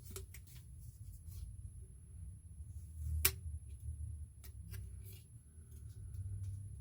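Hands handling the AirPods packaging and earbud case: scattered small clicks and light rustles, with one sharper click about three seconds in.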